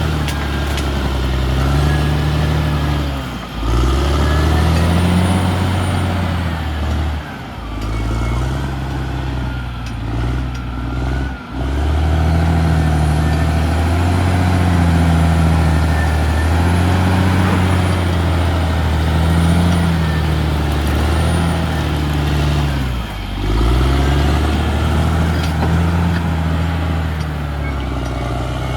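Caterpillar D6R XL bulldozer's diesel engine working under load, its note rising and falling over and over as the machine pushes earth, with a few brief dips in the engine note. A faint high squeal comes and goes.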